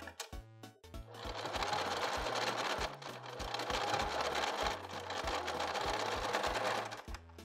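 Domestic sewing machine running steadily, stitching a practice zigzag seam on a scrap of fabric to test the stitch width and length settings; it starts about a second in and stops shortly before the end.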